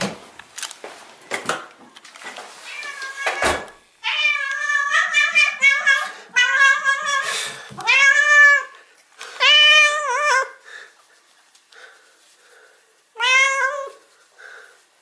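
Domestic cat meowing repeatedly, about six loud, drawn-out meows that bend in pitch, greeting its owner and asking to be stroked. A few clicks and knocks come before the first meow.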